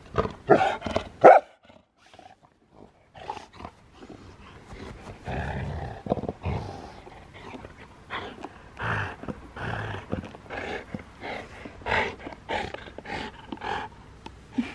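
A dog growling and grumbling in short bursts at play, a few sharp sounds in the first second and a half, then a quiet moment, then a run of short growly bursts at about two a second.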